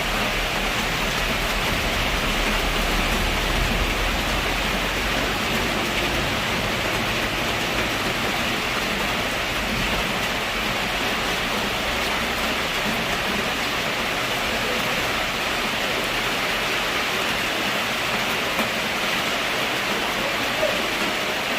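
Heavy rain falling steadily, an even hiss of rain on surfaces. A low rumble sits under it for the first five seconds or so.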